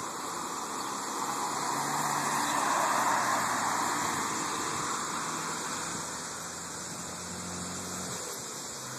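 A road vehicle driving past, its engine and tyre noise swelling to a peak about three seconds in and then fading away.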